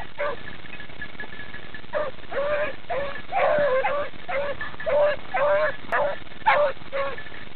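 Beagles baying while running a rabbit, a string of short yelping calls about two a second from about two seconds in.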